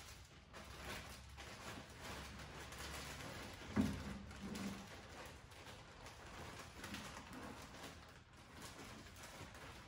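Clear plastic bags crinkling and rustling as they are handled and unpacked, with a short, louder low sound about four seconds in.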